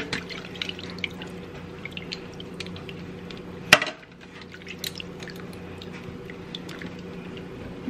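Water dripping and splashing in a sink as wet makeup brushes are handled in their soaking water: many small scattered drips, with one sharp click about four seconds in.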